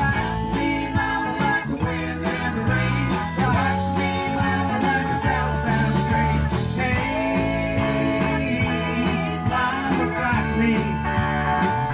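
Live rock band playing: electric guitar, bass and drums, with a man singing into a microphone over them.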